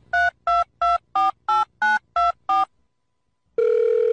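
Telephone touch-tone keypad being dialled: about eight quick two-tone beeps, a few a second, each key a different pitch pair. After a second's pause, a steady telephone line tone starts near the end.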